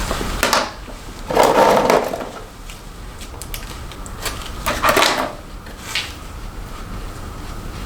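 Rustling and plastic clicks of snap-on hair rollers being handled while setting hair: a short scrape near the start, two louder rustling scrapes about a second and a half in and about five seconds in, and a small click about six seconds in.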